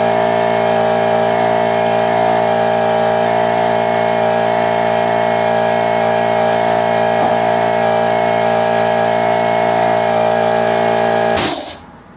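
Small Chinese electric piston air compressor running steadily with a constant hum, its valves rebuilt so that it now pumps up to 8 atmospheres. It is switched off and stops abruptly near the end.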